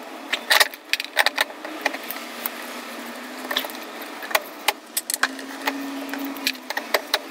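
Light metal clinks and knocks as a motorcycle swingarm pivot bolt is worked through the frame and swingarm mounts, irregular, over a low steady hum.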